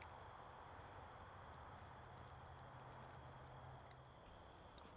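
Faint crickets chirping in a steady rhythm, about three chirps a second.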